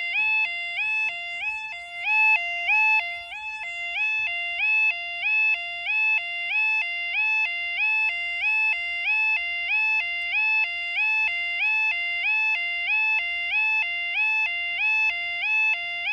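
Level crossing warning alarm, a British 'yodel' alarm, sounding while the barriers lower. It is a loud two-tone warble, stepping evenly and repeatedly between a lower and a higher pitch.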